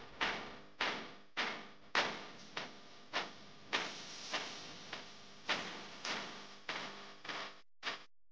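Domestic cat chewing and crunching the bones of a freshly caught wild rabbit: sharp crunches about every half second, getting shorter and softer near the end.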